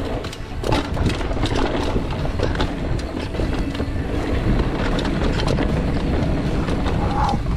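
Mountain bike descending a dirt trail: wind rushing over the microphone and tyre noise, with frequent rattles and knocks from the bike over bumps.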